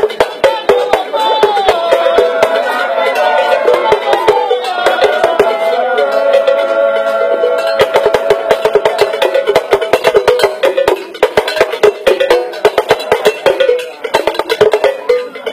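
Dance music: voices singing over dense, fast percussion strokes.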